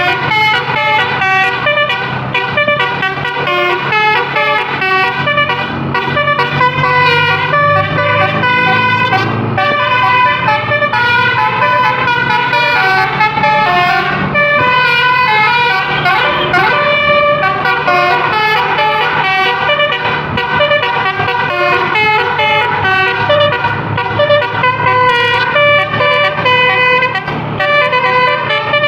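Basuri telolet multi-tone horn playing a fast melody, its notes changing pitch every fraction of a second without a break, over a steady low hum.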